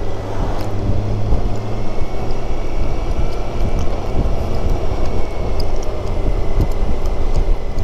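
Motorcycle riding at road speed: wind rushing over a helmet-mounted microphone, with the BMW K1600GTL's inline-six engine running steadily underneath.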